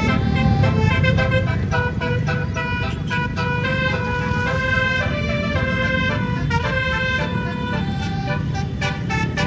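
18-note basuri musical air horn on a tour bus playing a tune: held horn notes that step up and down in pitch, one after another, over a steady low rumble.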